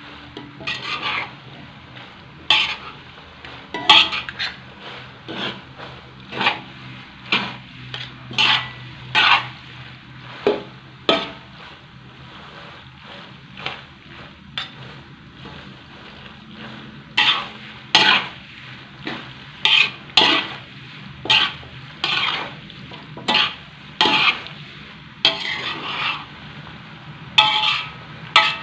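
A spatula scraping and knocking against a wok as macaroni is stir-fried, mostly about one stroke a second, with fewer strokes for a few seconds in the middle, over a steady frying sizzle.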